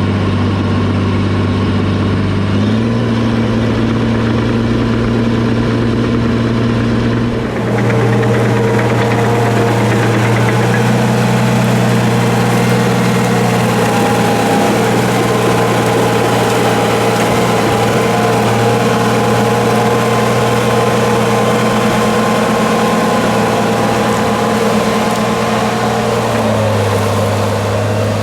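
Cat D5 bulldozer's diesel engine running steadily. Its note steps up about three seconds in, turns louder and noisier about seven seconds in, and drops back near the end.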